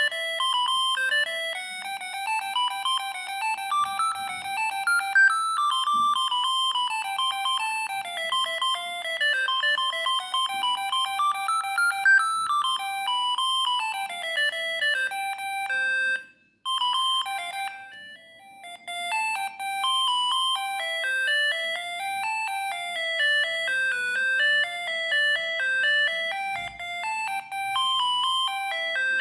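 Siemens S45i mobile phone playing a ringtone: a bright electronic tune of quick, separate notes. It cuts off briefly a little past halfway, then a melody starts up again.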